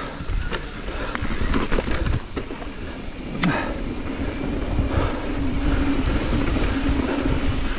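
Wheels rolling and rattling over rough ground, a steady rumble with scattered clicks and knocks, with wind on the microphone. A low steady hum joins about three and a half seconds in.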